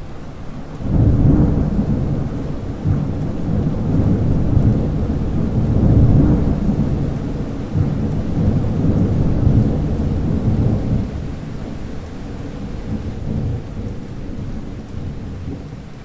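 Thunder rumbling over steady rain: a long, deep rumble starts suddenly about a second in and goes on for around ten seconds before easing off, over a constant hiss of rain.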